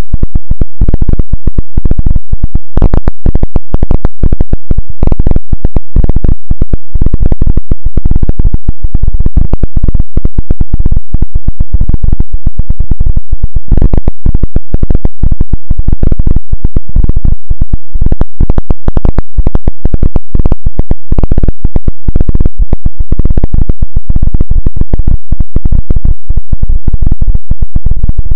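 Harsh, heavily clipped electronic noise at full volume: a dense, rapid crackle with most of its weight in the bass that runs on without a break.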